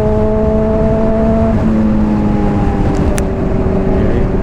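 Honda CBR600RR inline-four engine, fitted with a Hotbodies Stinger slip-on exhaust, running steadily at cruise in a high gear, with wind rushing over the helmet-mounted microphone. The engine note drops slightly in pitch partway through and eases lower again near the end.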